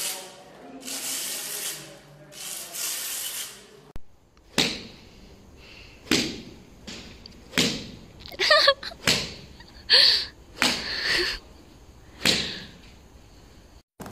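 Several long rubbing strokes of a pole-held tool across a wall, then, after a cut, a series of about eight sharp golf club strikes on balls, irregularly spaced.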